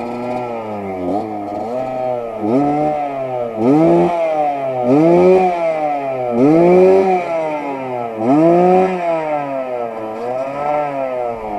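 Suzuki TS125's single-cylinder two-stroke engine idling, then blipped about seven times, each rev rising sharply in pitch and falling back to idle.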